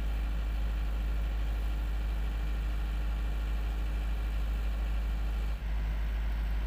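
Marine diesel engines running steadily during a tug-assisted unberthing of a container ship: a continuous drone with a deep rumble and a few steady tones. The sound changes briefly at a cut about five and a half seconds in.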